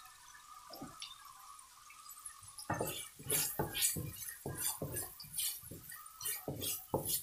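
Wooden spatula scraping and stirring diced pancetta, garlic and onion frying in a wok, with a faint sizzle. The scraping strokes start about three seconds in and come quickly, about three a second.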